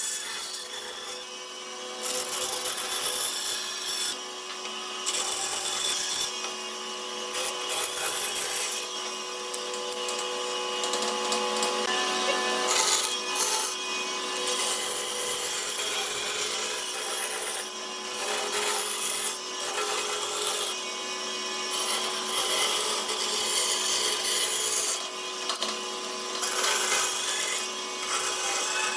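A power tool working wood: a steady motor hum with rasping, sawing or sanding noise that swells and eases every second or two.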